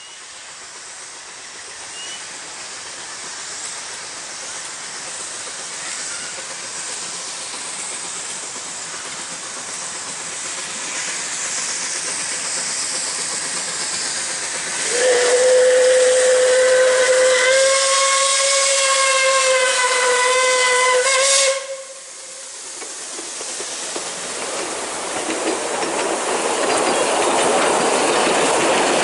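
Puffing Billy narrow-gauge steam locomotive approaching with a steadily building hiss of steam and running noise, then giving one long blast on its steam whistle, held steady for about six seconds from about halfway in before cutting off sharply. The train's running noise then grows louder again.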